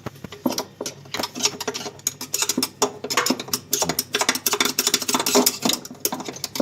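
Rapid scratching and clicking as the worn friction pads and residue are scraped and cleaned out of a washing machine's shock absorber.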